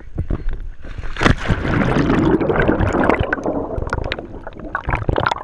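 Pool water splashing about a second in, then a dense rush of bubbles and sloshing, muffled and heard from under the surface.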